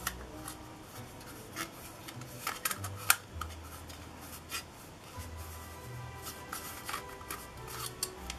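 Hard plastic petal lens hoods being handled: scattered clicks and rubbing of plastic on plastic, the sharpest click about three seconds in. Quiet background music with low bass notes runs underneath.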